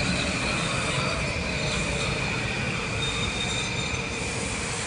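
Metro-North M8 electric multiple-unit train rolling past on the rails, its wheels giving a steady high-pitched squeal over the rumble of the cars; the squeal fades out near the end.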